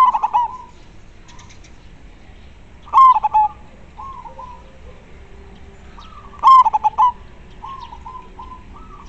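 Zebra dove (perkutut) cooing: three loud phrases of quick staccato coos, at the start, about three seconds in and about six and a half seconds in, each trailed by softer coos.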